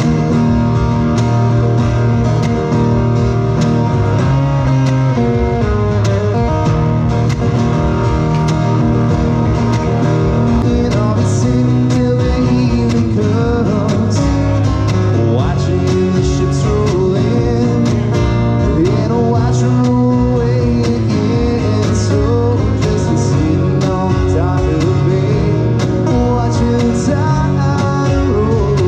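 Live band music, loud: an acoustic guitar strummed together with a second guitar.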